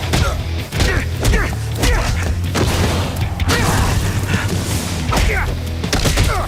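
Fight-scene sound effects: a rapid string of hits and thuds with swishing whooshes and short grunts, over a steady low music drone.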